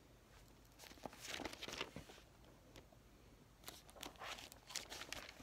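Sheets of lined writing paper rustling and crinkling as they are handled and gathered up, in two spells: about a second in and again near the end.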